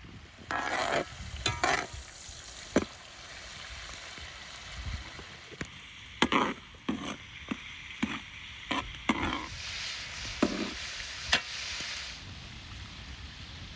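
Lamb pieces sizzling in a large cauldron over a wood fire while a long metal spatula stirs them: a steady frying hiss broken by a string of sharp scrapes and clanks of the spatula against the pot.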